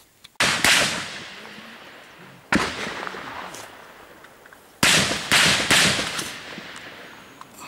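Gunshots fired one at a time in an exchange of fire, each sharp crack followed by a long echo that fades over about two seconds: two shots close together near the start, one about two seconds later, then three in quick succession about five seconds in.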